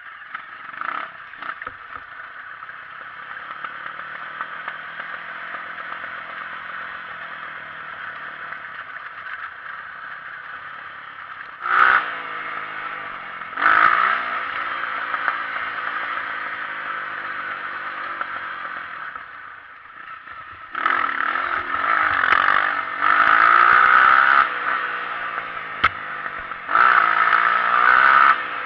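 Honda CRF230 dirt bike engine running and revving: single-cylinder four-stroke, air-cooled. It runs steadily at first, with sharp blips of throttle about twelve and fourteen seconds in. From about twenty-one seconds on it revs hard and loud, rising and falling.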